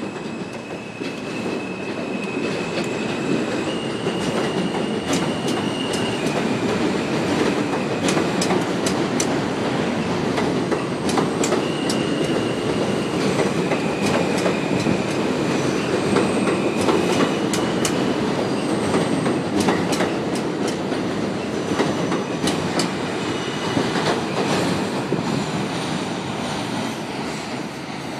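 R160A subway train pulling out and passing close by on elevated track: the rumble of the cars builds for about ten seconds, holds, then fades near the end as the train draws away. Over it are high, steady whining tones that shift pitch now and then, and through the middle a run of sharp clicks from the wheels over rail joints.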